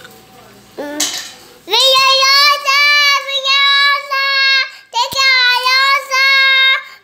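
A young child singing long, high held notes in short wordless phrases, one after another. A brief clatter comes about a second in, before the singing starts.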